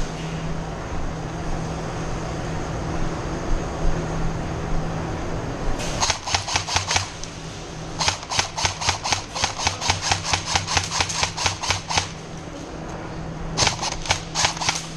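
Airsoft gun firing in rapid strings of shots at about six a second: a short burst about six seconds in, a longer string of about four seconds, and another short burst near the end.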